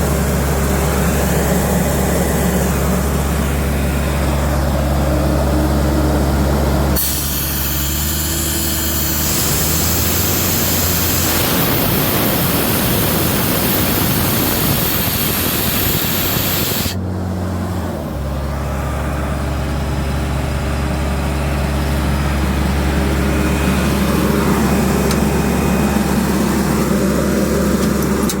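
Sullair 185 CFM air compressor's Caterpillar C2.2 diesel engine running steadily. About seven seconds in, a loud rushing hiss of air released from the compressor starts, lasts about ten seconds, then cuts off suddenly, and the engine keeps running.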